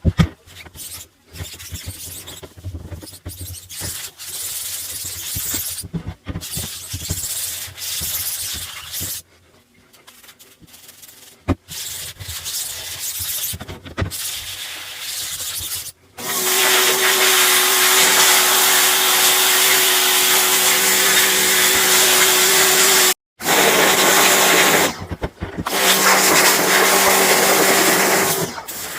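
Pressure washer spraying water onto screen-printing screens: a hissing spray chopped into short, abruptly cut pieces at first, then from about halfway a loud, steady spray with a steady hum from the machine underneath, broken twice by brief cuts.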